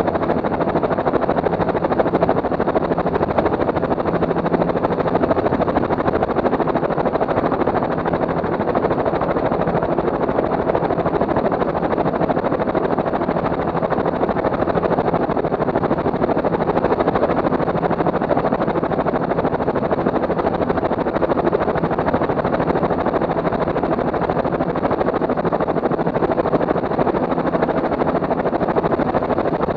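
Small multirotor drone's motors and propellers humming steadily, picked up by its onboard camera: an even rush with a few steady tones held throughout.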